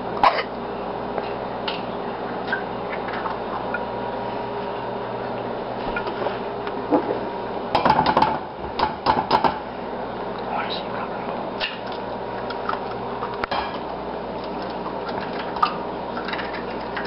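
Eggs being tapped and cracked on the rim of a nonstick frying pan: a cluster of sharp taps and shell cracks at the start and another about eight seconds in, with single taps later, over a steady background hum.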